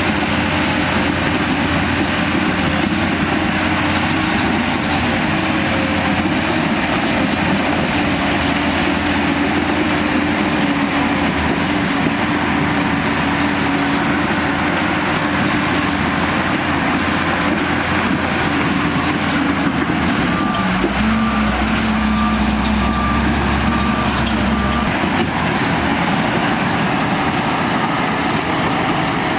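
Heavy diesel engine of a Shantui bulldozer running steadily under load while spreading rock. About two-thirds of the way through, a reversing alarm beeps about five times over four seconds, together with a deeper engine note.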